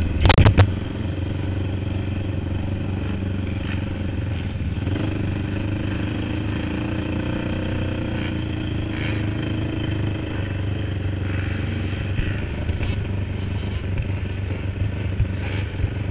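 Racing quad's engine running hard on a motocross track, heard from the rider's helmet camera, its note shifting as the rider works the throttle. There is a sharp clatter about half a second in.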